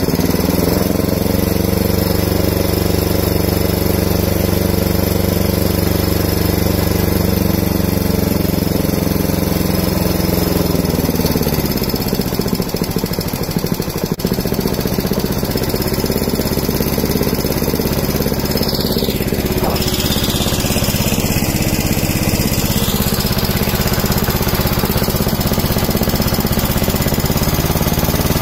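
Honda GX160 single-cylinder four-stroke engine running on hydrogen gas. It runs steadily, then about eleven seconds in it falters and runs roughly for two or three seconds before settling back into a steady run.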